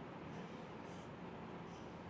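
A drawing tool scratching on paper in a few short strokes, about three in two seconds, faint over a steady background hiss.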